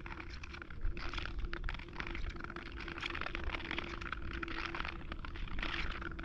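Wind rumbling on the microphone, with hissing, crackling bursts about once a second and a faint steady hum underneath.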